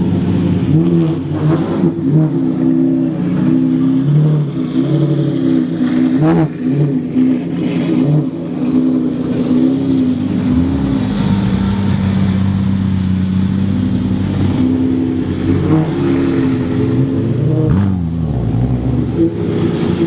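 Maserati MC12 Corsa's 6.0-litre V12 running at idle, revved in short blips of the throttle several times. It settles into a steady idle for a few seconds midway, then is revved again near the end.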